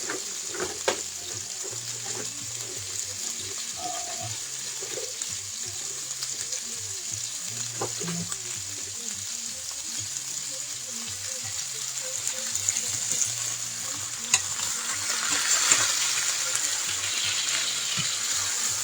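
Beef pot roast searing in hot oil in a skillet: a steady sizzle with a few sharp pops of spitting fat, growing louder about fifteen seconds in.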